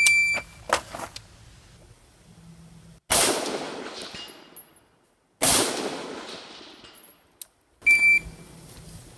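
An electronic shot timer beeps once to start. A few light knocks follow as the rifle is snapped into position, then an AR-pattern rifle fires two shots a little over two seconds apart, each with a long echo dying away. The timer beeps again about eight seconds in, marking the end of the 8-second par time.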